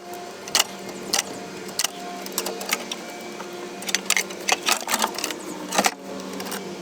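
Irregular sharp clicks and knocks, about fifteen, some in quick clusters, over a faint steady hum.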